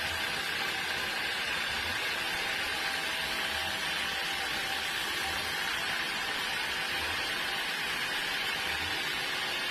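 Sawmill machinery running steadily: a constant mechanical hiss with a faint steady whine and weak low pulses every second or two.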